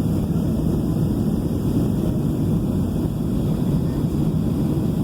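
Steady low rumble of a Boeing 737-700's jet engines during landing, with wind buffeting the microphone.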